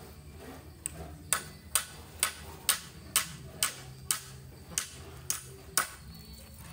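Sharp ticks repeating steadily, about two a second, over a low steady hum.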